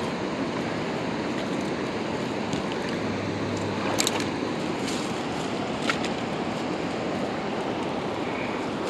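Steady rush of a fast-flowing river running high, with a couple of brief clicks or knocks about four and six seconds in.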